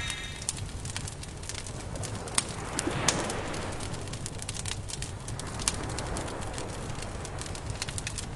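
Campfire crackling, with irregular sharp pops and snaps over a steady low rumble.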